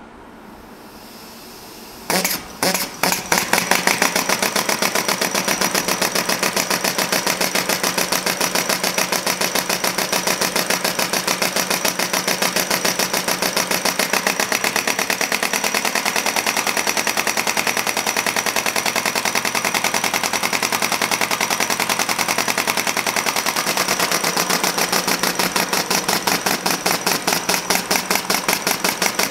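Model John Deere-style two-cylinder four-stroke engine running on compressed air. A faint hiss comes first, then about two seconds in it catches with a few sharp puffs. It settles into a rapid, even run of exhaust puffs.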